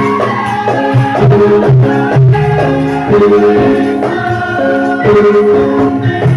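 Accompaniment music for a Javanese tari topeng mask dance: a phrase of held pitched notes that repeats about every two and a half seconds, over drum strokes and shaker-like percussion.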